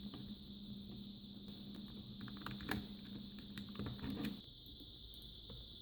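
Light scattered clicks and ticks of a Sony car radio's metal cover being fitted and its screws driven in by hand, under a faint steady hum that stops about four seconds in.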